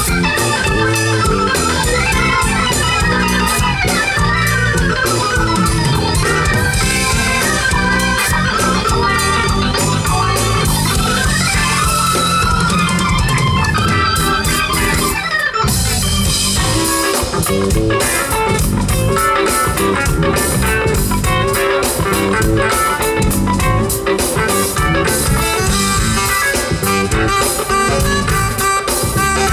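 Live jazz-fusion band playing: an organ-toned keyboard lead with gliding notes over electric bass, drum kit and electric guitar. About halfway through the band cuts out together for an instant, then comes back in with short, choppy hits.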